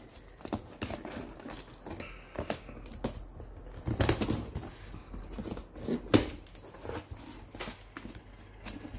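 Scissors snipping packing tape on a cardboard box, with cardboard and plastic packaging rustling and scraping as the flaps are worked open: a string of irregular sharp clicks, the sharpest about four and six seconds in.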